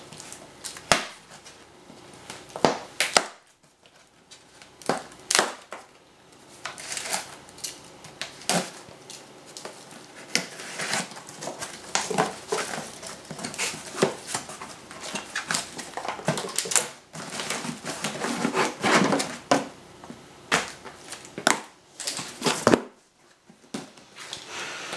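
Cardboard box being unboxed by hand: plastic packing strap cut and pulled off, box flaps opened and a spool of power wire lifted out. A busy run of sharp snaps, clicks and scrapes with cardboard rustling.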